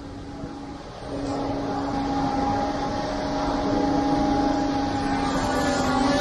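Concrete pump truck's diesel engine rising to a higher speed about a second in, then running steady as pumping starts.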